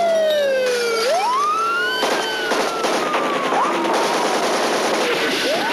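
Police car siren wailing: its pitch falls, swings sharply up about a second in, then slides slowly down, over loud, noisy car-chase road and engine sound that swells about two seconds in.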